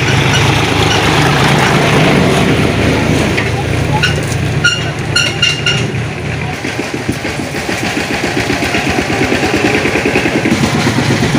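Diesel tractor engine idling with a steady low rumble, its rapid firing pulses becoming more distinct in the second half. A few short high chirps sound about five seconds in.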